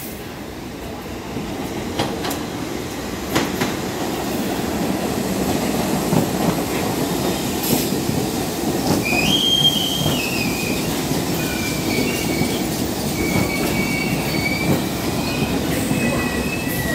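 New York City subway train running past the platform, its wheels rumbling and clacking over rail joints and growing louder over the first few seconds. From about nine seconds in, high-pitched wheel squeals come and go.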